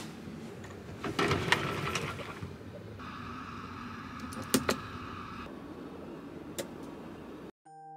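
Bedding and a capsule-hotel bunk rustling and bumping as someone climbs in. Then a steady hum, a sharp click of a wall light switch about four and a half seconds in, and a second click later. Soft chime music starts at the very end.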